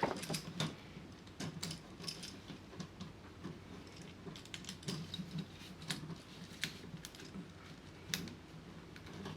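Faint, irregular clicks and ticks of a Phillips screwdriver working a terminal screw on a wall outlet, fastening a wire under it.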